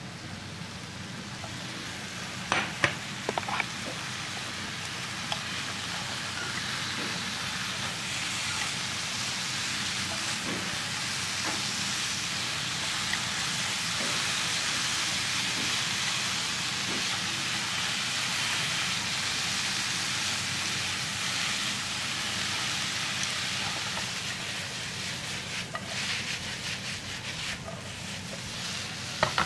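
Beef cubes and bell pepper pieces sizzling and being stirred in a 28 cm ceramic non-stick frying pan. The sizzle grows louder toward the middle. There are a few sharp knocks about three seconds in and clattering against the pan near the end.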